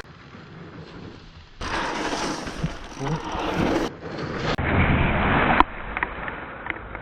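Riding noise from a mountain bike on a dirt forest trail: a rushing rumble of tyres and wind on the microphone that swells and drops, with a few short knocks over bumps in the second half.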